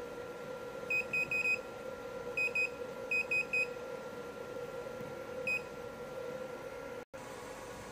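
Touchscreen control panel of an LED phototherapy machine giving short high key beeps as its buttons are pressed to step up the intensity setting. About ten beeps come in quick runs of two to four in the first four seconds, with one more about five and a half seconds in, over a steady hum.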